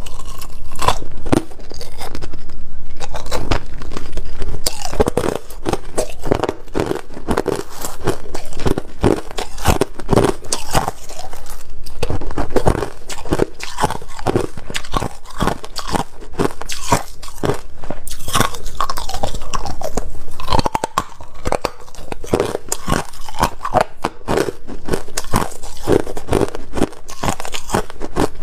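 Pieces of clear ice being bitten and chewed: a continuous, irregular run of loud crunching and cracking close to a clip-on microphone.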